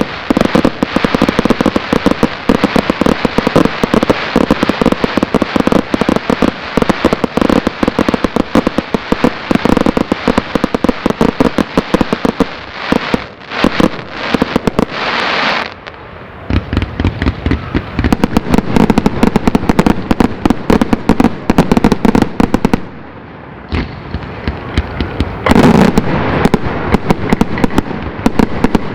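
Fireworks display going off: dense, rapid bangs and crackling, many reports a second. The barrage eases about halfway with a short hiss, then again briefly a little past two-thirds of the way before it picks up once more.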